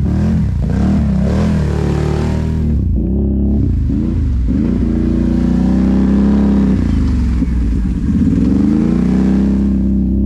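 Can-Am Renegade ATV's V-twin engine under way, the revs rising and falling quickly on the throttle, then holding steadier, with a brief easing off and pick-up about seven or eight seconds in.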